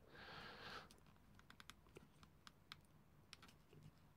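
Near silence with faint, irregular small clicks of fingers working at a plastic wiring connector (the throttle position sensor plug on a carburettor), after a brief soft rustle at the start.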